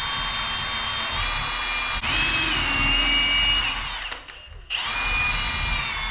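Electric drill boring a hole in a wooden knife-handle block for the tang, the motor whining steadily. Its pitch rises about two seconds in and sinks again, then it stops briefly a little after four seconds and starts up again.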